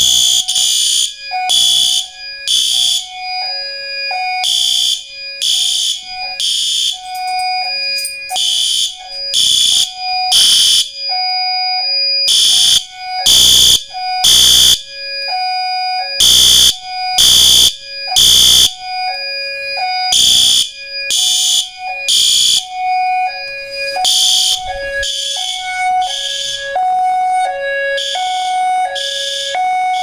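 Fire alarm horn strobes (System Sensor P2RL and P2W) sounding in repeated short loud blasts after a pull station has been activated, with a second alarm tone alternating between a higher and a lower pitch underneath. The blasts are loudest about halfway through.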